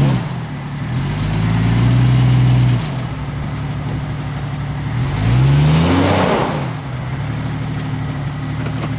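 Off-road vehicle's engine revving hard in two bursts, about a second in and again about five seconds in, each rising and then falling back to idle, as it tries to climb a slippery slope; a rushing noise comes at the height of the second burst.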